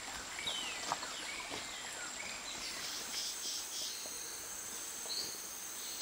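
Tropical forest insects droning steadily in a high band, with wild bird calls over them: a descending whistle near the start, a short run of notes around the middle and a couple of brief calls near the end. A few faint knocks are mixed in.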